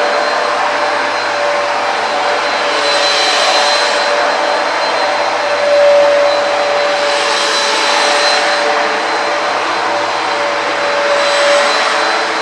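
Hoover PowerDash upright carpet cleaner running rinsing passes over a rug: a steady motor whine over a loud suction hiss. The hiss swells and eases every few seconds as the machine is pushed and pulled.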